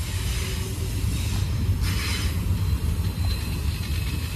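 Freight train's enclosed autorack cars rolling past, a steady rumble of wheels on rail.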